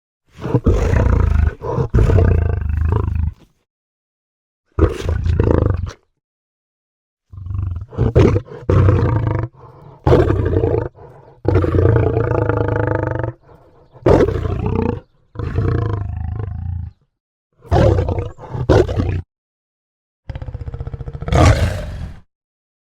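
A series of big-cat roars and growls, sound effects standing in for a scimitar-toothed cat. There are about ten separate calls of one to two seconds each, with dead silence cut in between.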